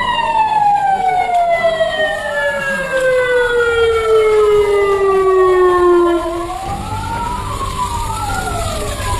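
Several sirens sounding an evacuation warning, overlapping. One long tone falls steadily in pitch and cuts off about six and a half seconds in. The others keep wailing, slowly rising and falling, over a low rumble.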